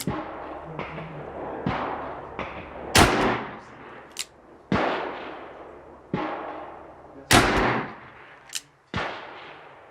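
Gunshots from a Smith & Wesson Model 29 .44 Magnum revolver firing handloads: two loud shots about three and seven seconds in, each with a long echoing tail, among several quieter shots spaced through the rest.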